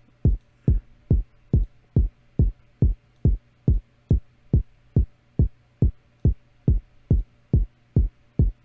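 Electronic kick drum sample playing in a loop on every beat: short, deep, evenly spaced thumps a little over twice a second. The hits are cut short by the sample's envelope (hold), shaped to sit with a lower-pitched kick.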